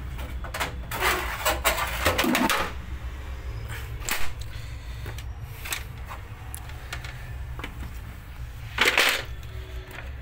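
Knocks and clatter of hard plastic and metal copier parts being handled and fitted against the machine's frame: a run of knocks in the first few seconds, one sharp knock about four seconds in, and a brief scraping rustle near the end, over a steady low hum.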